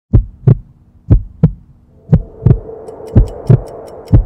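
Intro music built on deep double thumps, one heartbeat-like pair about every second. A steady humming pad swells in about halfway, and faint quick ticks join near the end.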